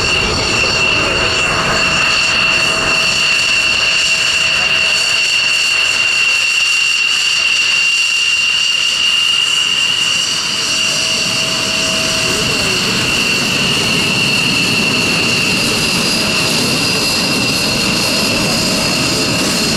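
Aircraft engine running loudly with a steady high-pitched whine over a rushing noise.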